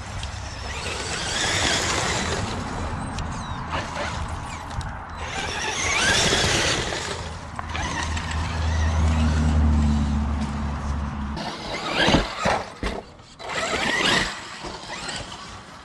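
Traxxas E-Revo 2.0 RC truck driving: motor and tyre noise swelling and fading with bursts of speed, over a low steady hum that cuts off about eleven seconds in. A few sharp knocks follow about twelve seconds in.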